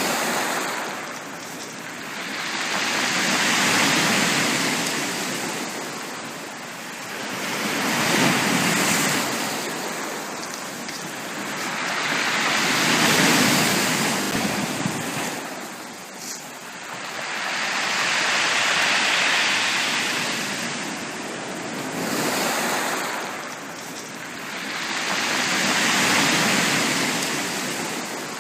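Sea waves washing onto a beach, each one swelling and fading away, about one every five to six seconds.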